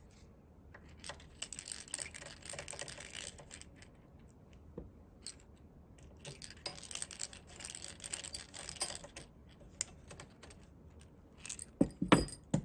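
Hand screwdriver backing out the small screws of the planer's red scale-cursor bracket: two stretches of rapid light clicking, then a couple of louder knocks near the end.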